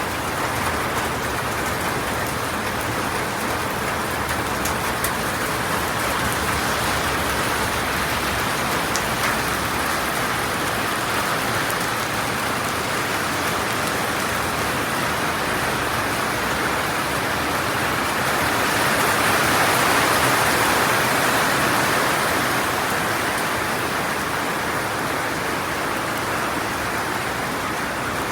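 Heavy rain falling steadily, swelling a little louder for a few seconds about two-thirds of the way through.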